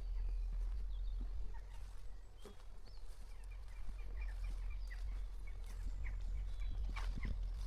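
Small birds chirping and singing, with a quick run of chirps in the middle, over a steady low wind rumble on the microphone and occasional footsteps.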